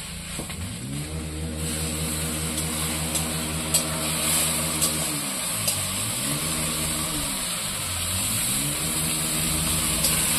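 An engine running, its pitch coming up at the start, holding steady, then dropping and climbing again twice. Under it, drumstick leaves sizzle as they fry in a wok, with the sizzle starting about a second and a half in.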